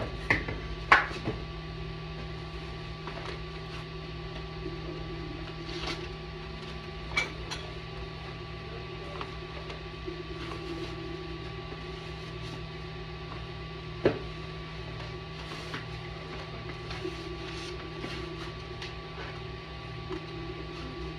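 Cardboard box and foam packing being handled while a 3D printer is unboxed: scattered knocks and rustles, a few near the start and a sharper knock about 14 seconds in, over a steady hum.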